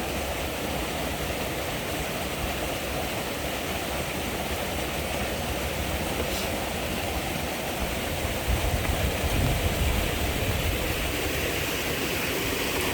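Rain-swollen stream rushing steadily, an even noise of fast-flowing water. Between about eight and a half and ten seconds in, a few louder low thumps sit over it.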